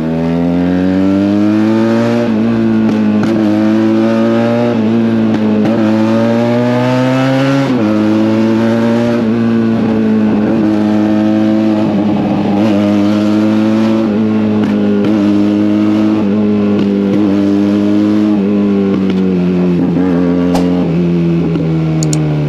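Benelli TNT 300 twin-cylinder motorcycle engine and exhaust running loud, climbing in pitch as it accelerates and dropping sharply at gear changes, then easing off near the end.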